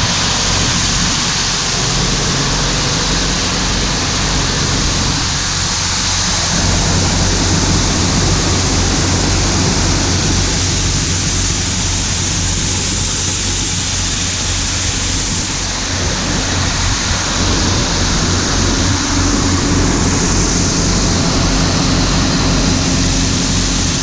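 Large farm machinery engine running steadily under load, a low engine hum beneath a constant loud rushing noise.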